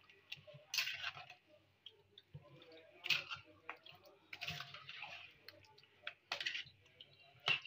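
Spoon working raw chicken pieces through a thick yogurt-and-spice marinade in a steel bowl: irregular wet squelching and scraping strokes every second or two.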